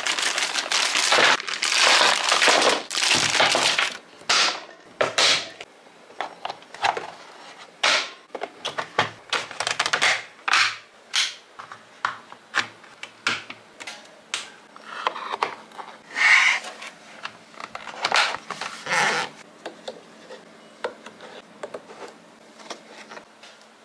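Clear plastic bag crinkling as it is cut open with scissors and handled, then hard plastic toy parts being fitted and pressed together in a string of short clicks and knocks. Two more bursts of crinkling come about two-thirds of the way through.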